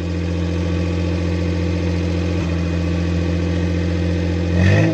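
Suzuki Bolan's 796 cc three-cylinder petrol engine running steadily, just rebuilt with new piston rings, with a short louder sound just before the end.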